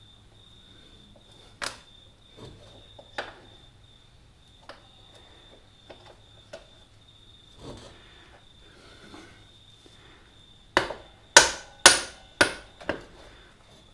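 Rear axle bolt of a Honda CB125E being worked through the wheel hub, spacers and swingarm: scattered metallic clicks and knocks, then a run of five sharp knocks about two a second near the end.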